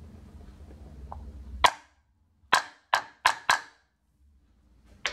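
Sharp clicks and knocks from hard parts handled on a metal lathe slide. There is one loud knock about a second and a half in, four quick ones a second later, and a close pair near the end, with dead silence between them. A low hum stops at the first knock.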